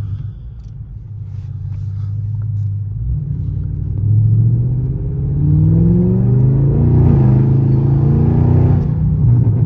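Audi S8's twin-turbo V8, with a 5-inch intake and catless downpipes, heard from inside the cabin with the windows up. It rumbles low, then accelerates from about four seconds in, its pitch climbing, with a rushing hiss joining as it pulls hardest near the end.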